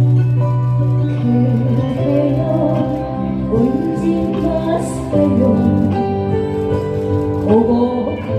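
Instrumental backing track of a slow Korean song: sustained chords over a steady bass line, with a melody line moving above.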